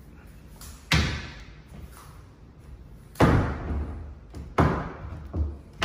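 Louvered closet doors being opened and shut, giving about five sharp knocks and bangs, with the loudest about three seconds in.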